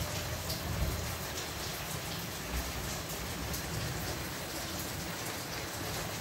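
Steady rain: an even hiss with scattered faint drip ticks, and a couple of low thumps, one about a second in and another near the middle.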